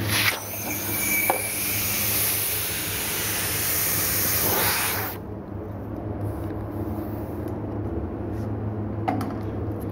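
Compressed air hissing loudly at a car tyre on a steel wheel for about five seconds, then cutting off suddenly. A steady low hum runs underneath, and there is a single short click near the end.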